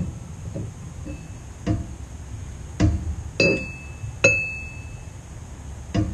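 A metal plumb bob clinking and knocking against the steel frame tubing and the plate it rests on: about six separate knocks, two of them near the middle ringing briefly with a high metallic tone.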